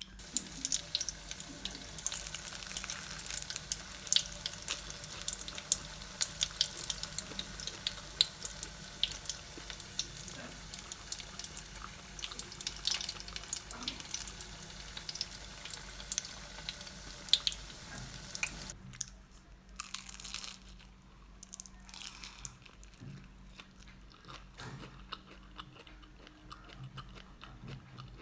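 Close-up chewing of crispy fried turon, banana and meat rolled in a spring-roll wrapper: a dense run of crackling crunches for about the first 18 seconds, then quieter, sparser chewing.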